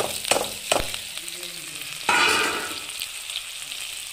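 Food sizzling in a hot pan as it is stirred with a utensil that knocks against the pan three times in the first second. Just after two seconds a louder hiss flares up for about half a second.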